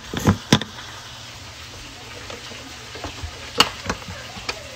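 A few sharp plastic knocks and clicks, three close together at the start and more about three and a half seconds in, from a Beaba Babycook baby-food maker's jar and lid being handled and pushed to close: the lid will not latch because a piece is missing.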